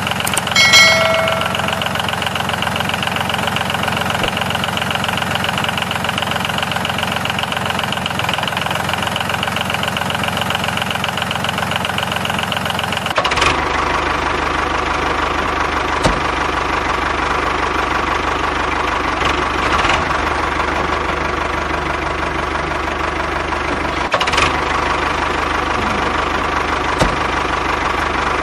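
A tractor engine running steadily, starting abruptly. About halfway through the sound shifts to a deeper, fuller running note, with a few faint clicks later on.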